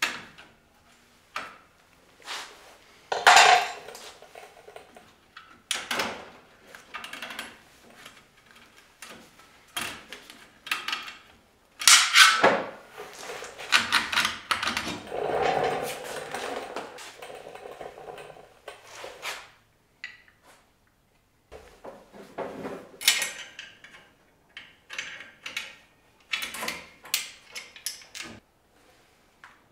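Irregular metallic clanks, clinks and scrapes of a steel drum-brake backing plate, with its parking-brake shoes, being handled and fitted onto the end of a Ford 8.8-inch rear axle housing. The loudest clanks come about 3 and 12 seconds in.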